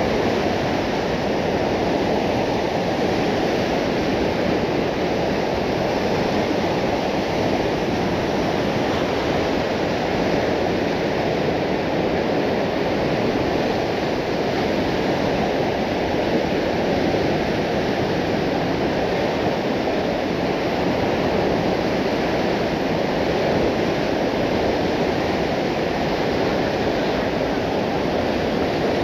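River rapids rushing steadily over and around boulders: a loud, even, unbroken sound of fast whitewater.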